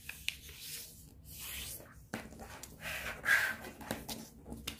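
Sheet of origami paper rustling and rubbing as hands fold it and press the creases flat, in uneven swells with a few sharp clicks.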